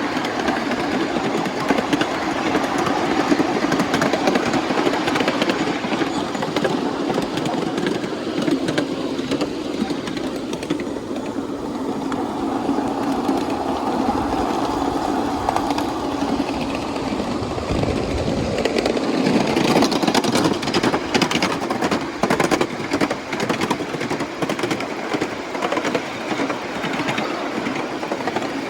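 Miniature ride-on train rolling along 7¼-inch gauge track: a steady rolling rumble with wheels clicking over the rail joints, the clicking thicker from about two-thirds of the way in.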